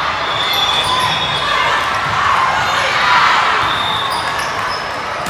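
Gym sounds of a youth volleyball match in play: a steady hubbub of voices, with scattered high sneaker squeaks and a few ball thuds.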